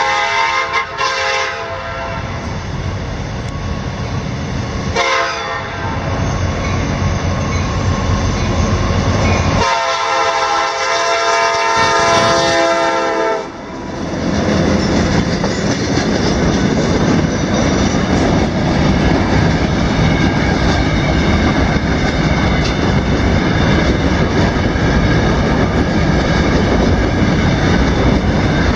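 Freight locomotive's air horn sounding for a road crossing: a long blast trailing off at the start, a short blast about five seconds in, and a long blast from about ten to thirteen seconds. After that the locomotive and a train of covered hopper cars pass close by with a steady rumble and the clatter of wheels on rail joints.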